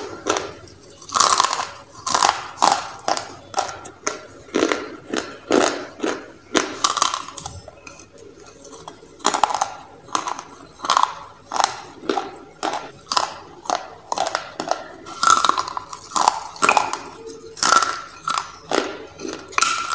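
Close-up crunching of dry clay rolls being bitten and chewed: a run of sharp, crisp crunches, about one or two a second, with a short lull a little before the middle.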